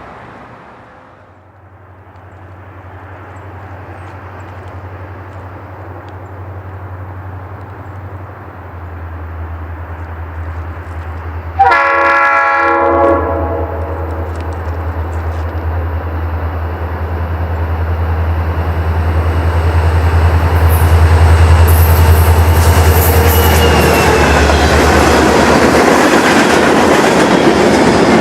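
Diesel-electric freight locomotive approaching with its engine drone growing steadily louder, sounding one short horn toot about halfway through. It then passes close with heavy engine and wheel-on-rail noise and some high squealing from the wheels.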